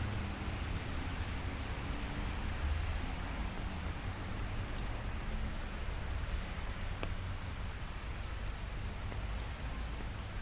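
Steady light rain falling on city street surfaces, a continuous even hiss, over a low steady rumble, with a single sharp drip tick about seven seconds in.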